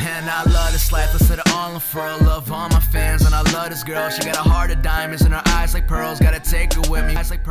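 Hip hop music with a steady beat and deep bass notes that slide down in pitch.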